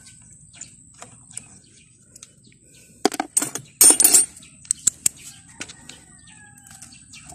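Metallic clicks and clatter of loosened small bolts and a wrench as the round aluminium cam-sprocket cover on a Suzuki Smash cylinder head is worked loose. Light scattered ticks, then a cluster of louder clatter about three to four seconds in.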